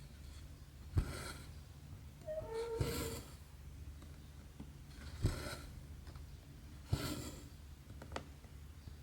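Hand cross-stitching on 11-count fabric: a needle pricking through the cloth with a sharp tick, each followed by the short rasp of embroidery floss being pulled through. Several such stitches come every second or two, over a low steady hum.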